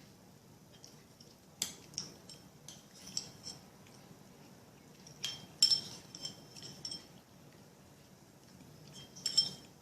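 Metal cutlery clinking and scraping against a dish while eating, in scattered light taps with a short high ring, the busiest clusters about a second and a half in, around the middle, and just before the end.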